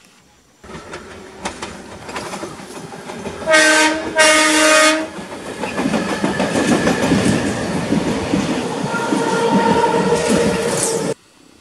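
Mafersa-built CPTM Série 1700 electric multiple unit sounding its horn twice, a short blast then a longer one, as it approaches, then running close past with loud wheel-on-rail noise and a steady whine over it in the last few seconds. The sound cuts off suddenly near the end.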